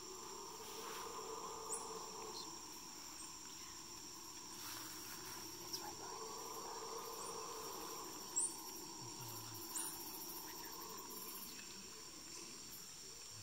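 Amazon rainforest insect chorus: a steady high-pitched buzzing, under a lower hum that swells and fades a few times. A few short, high chirps break in.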